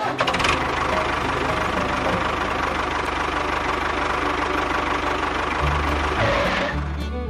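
A small motor running steadily with a constant hum, which stops near the end.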